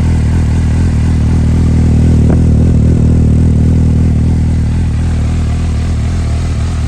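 2011 Suzuki GSR750's inline-four engine idling steadily through an Akrapovic carbon slip-on muffler.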